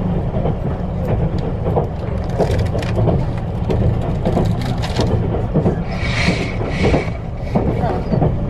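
Steady low rumble of a moving passenger vehicle heard from inside, with frequent small knocks and rattles, and two short hissy sounds about six to seven seconds in.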